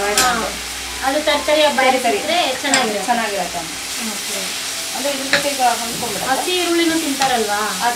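Fenugreek greens sizzling in hot oil in a pan while a steel spatula stirs and scrapes them, sautéed until they wilt and lose their raw smell.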